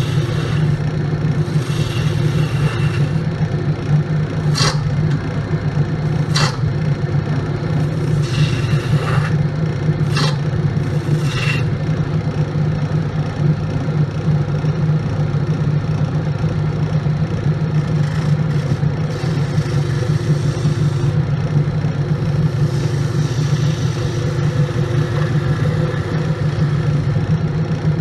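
Grizzly wood lathe running with a steady hum while a turning tool cuts the spinning wood blank in repeated scraping passes, with two sharp clicks a couple of seconds apart early on.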